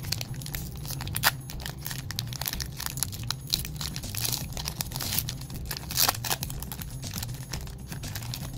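Foil Pokémon card booster pack wrapper crinkling and tearing as it is opened, a run of sharp crackles with the loudest about a second in and again about six seconds in.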